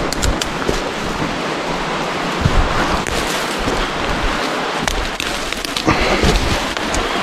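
Footsteps and brushing through forest undergrowth of a person climbing a steep slope, as scattered clicks and a few low thumps, over a steady rushing noise.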